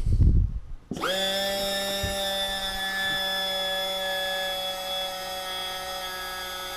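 Small electric hydraulic pump of a model aircraft's retractable landing gear starting about a second in, with a brief rise in pitch, then running with a steady whine as it drives the gear the other way.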